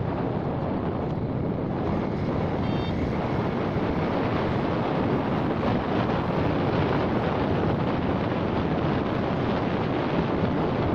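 Steady wind rushing over the microphone of a phone held by a rider on a moving 70cc motorcycle, drowning out the bike's small engine.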